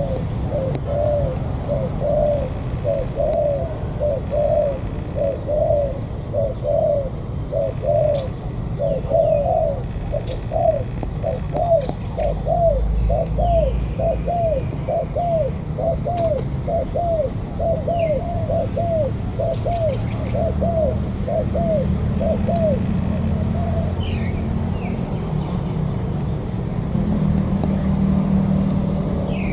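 Spotted dove cooing: a long run of short, arched coo notes, a bit under two a second, that stops a few seconds before the end. A low rumble runs underneath and grows louder in the last few seconds.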